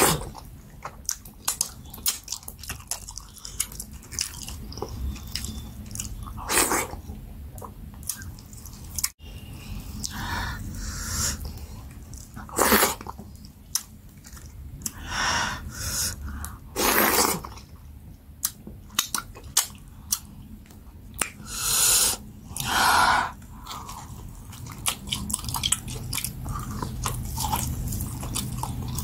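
A person chewing and eating goat head pepper soup with fufu: many small wet mouth clicks and smacks, with about half a dozen louder noisy mouth sounds lasting a second or so each.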